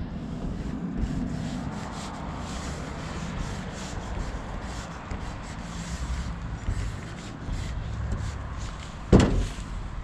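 Paint marker nib rubbing and scraping across a surface in short strokes while writing a graffiti tag. A single sharp thump sounds near the end.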